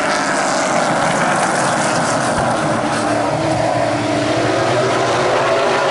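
A pack of stock cars racing through a turn, several engines running hard at once, their overlapping tones gliding up and down in pitch.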